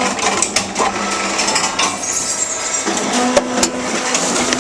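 Reverse vending machine taking in a plastic bottle: a motor hum that sets in about three seconds in as the machine rotates the bottle to read its barcode, over clicks and clatter from the mechanism.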